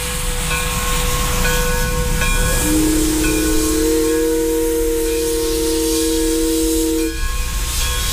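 Steam whistle of an Alco 2-8-2T tank locomotive blowing a long, steady blast over a constant hiss of escaping steam. The whistle holds one note, a second lower note joins about three seconds in, and the whistle breaks off about seven seconds in.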